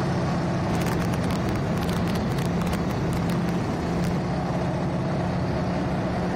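T-6 Texan trainer's Pratt & Whitney R-1340 radial engine droning steadily in flight, heard from inside the cockpit with wind rush. A few crackles come through in the first half.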